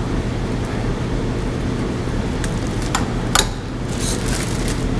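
Steady low machine hum, with a few sharp metallic clicks about three seconds in as exhaust pipe parts are pushed and seated together.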